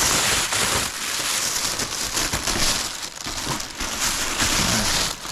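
Packing material crinkling and rustling continuously as it is pulled and crumpled out of a shipping box.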